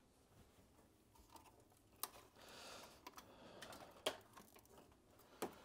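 Faint handling sounds: a scattering of small clicks, most between about two and four seconds in, with a soft rustle, as hands work with a cable and small tools.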